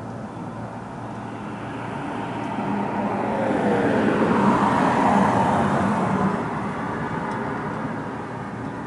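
A car passing on the road, its noise swelling to a peak about halfway through and then fading away.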